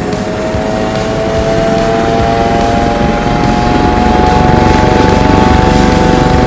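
Helicopter starting up: a turbine whine slowly rising in pitch over a fast, building rotor chop, growing louder.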